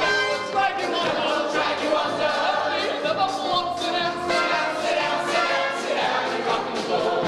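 Musical theatre cast singing a lively show tune in full chorus, with the pit orchestra accompanying.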